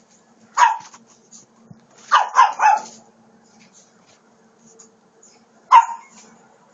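Japanese Chin barking in play: one sharp bark, then three quick barks about two seconds in, and one more near the end.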